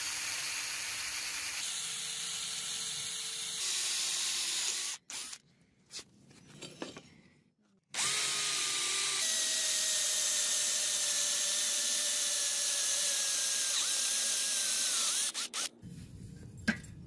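Electric hand drill boring holes through a metal sword blank with a twist bit: two long runs of the drill's steady whine, the second starting about eight seconds in, with a short break between them.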